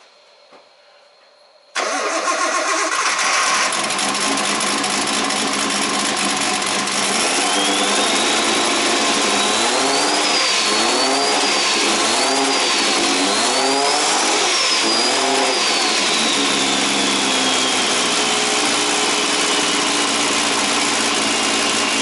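Nissan RB25DET turbocharged straight-six cranking and firing about two seconds in, then revved in a string of short throttle blips with a high whine rising and falling with the revs, before settling to idle. The engine is being diagnosed for a misfire.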